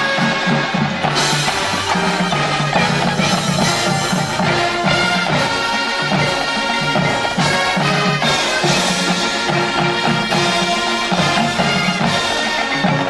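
Marching band playing a full-ensemble passage: sustained brass chords over a driving drum-line beat.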